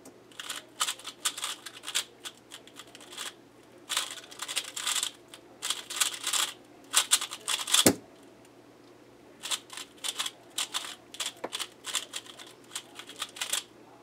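QiYi Valk 3 speedcube being turned fast: rapid plastic clicking and clacking of the layers in three long runs with short pauses, and one sharper knock about eight seconds in.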